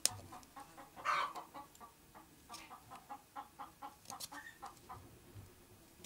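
Chickens clucking in a rapid run of short calls, with a louder squawk about a second in. A sharp click comes right at the start.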